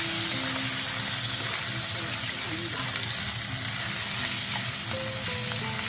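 Pork spareribs and salted pork sizzling steadily in hot fat in a stainless steel wok, stirred with a wooden spatula. The fat has been rendered out of the salted pork to fry the ribs.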